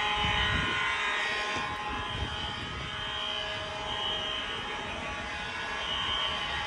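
Low rumble of passing traffic with a sounding fire alarm's steady tone behind it. The highest part of the tone fades in and out, drowned out at times by the traffic.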